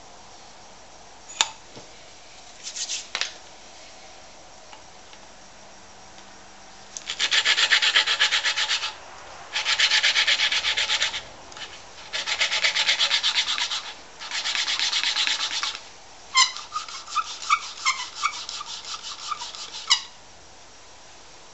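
Valve being lapped into its seat in the cast-iron cylinder head of a Wolseley WD2 stationary engine: a screwdriver twists the valve rapidly back and forth on grinding paste, making a gritty rasping in four spells of a second or two each. This follows a sharp click and a few short scrapes, and the grinding gives way to a run of sharp metallic clicks and taps. The valve was a bad fit, and the lapping is meant to restore its seal and compression.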